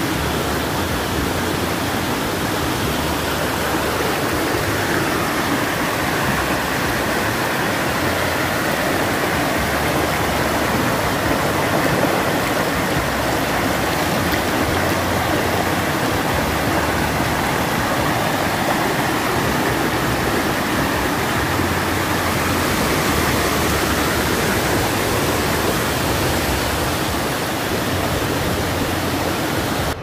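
Surf washing onto a sandy beach as a steady, even rush, with wind buffeting the microphone in low rumbles.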